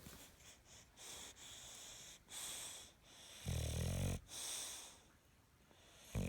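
Bully-breed dog snoring in its sleep: soft, wheezy breaths, then a loud, rattling snore about halfway through and another near the end.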